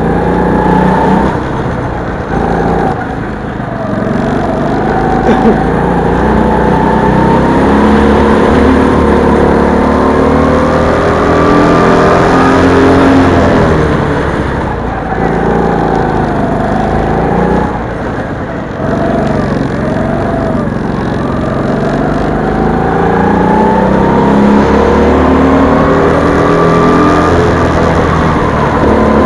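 Go-karts running on a track: the onboard kart's engine rising and falling in pitch as it accelerates and lifts off through the corners, with other karts' engines running alongside.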